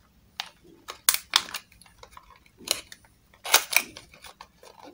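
A small cardboard box being handled and its end flap opened: scattered short scrapes and taps of card, the loudest about three and a half seconds in.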